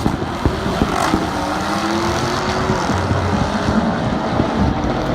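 Car engines running, with one engine's pitch rising slowly about two seconds in as it revs.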